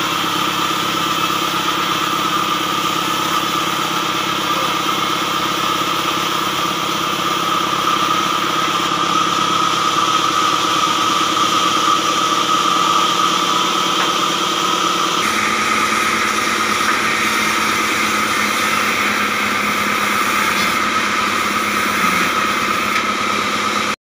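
Diesel engine driving a sawmill, running steadily while a long timber is fed through the saw, with a steady high whine over the engine. The sound changes abruptly about 15 seconds in.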